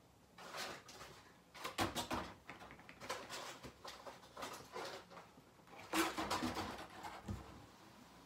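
Rustling and knocking as things are handled and moved about, in several short bursts. The loudest come about two and six seconds in.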